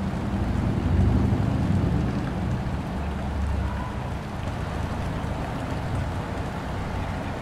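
Boat engine rumbling low under a steady rushing wash of water noise. The rumble swells about a second in and eases after about four seconds.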